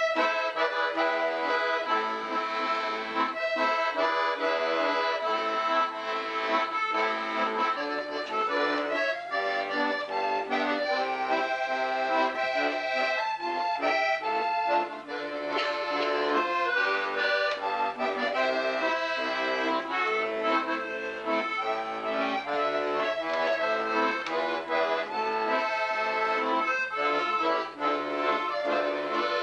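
Accordion playing the instrumental break of a Russian folk-style song between sung verses.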